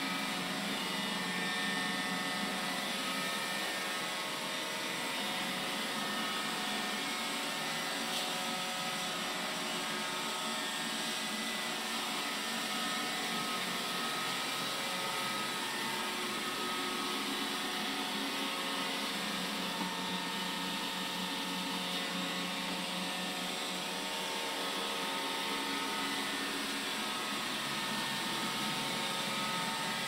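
iRobot Roomba 975 robot vacuum running steadily as it cleans a hard laminate floor: a constant motor hum with several fixed pitches over a steady hiss.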